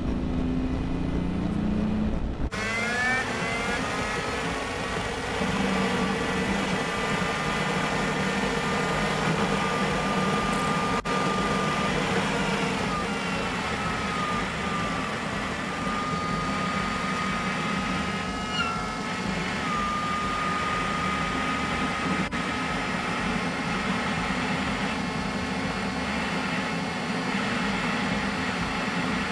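Kenworth W900 truck running down a long grade, heard from inside the cab: steady diesel engine and road noise with a thin whine that dips and returns. The sound changes abruptly about two and a half seconds in.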